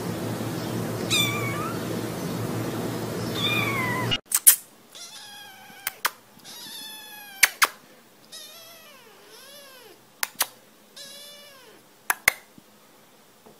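Kittens meowing: two short high meows over a steady background hiss, then, after a cut about four seconds in, a run of repeated high-pitched kitten mews that rise and fall, with sharp clicks in pairs between them.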